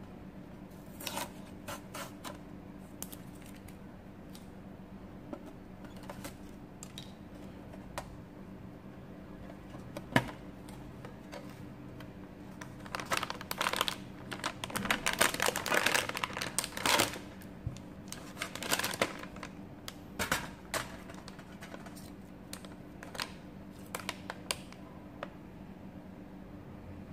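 Hands handling a printed metal tin and the foil snack bag inside it: scattered light clicks and taps on the tin, a single sharp knock about ten seconds in, then several seconds of foil wrapper crinkling in the middle, with a shorter crinkle soon after. A steady low hum runs underneath.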